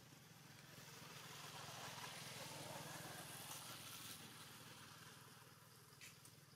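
Near silence: a faint rushing noise swells and fades over a few seconds above a low steady hum.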